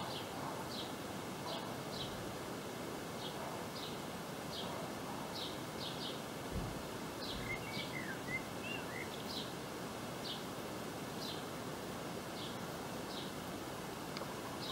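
Outdoor garden ambience: a bird repeating a short, high chirp about once a second, with a second bird adding a brief run of curling notes around the middle, over a steady background hiss.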